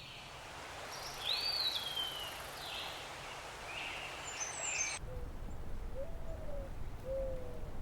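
Wild birds calling outdoors. First come high whistled calls, one sliding down in pitch. After an abrupt cut about five seconds in, three low hooting calls follow over a steady low rumble.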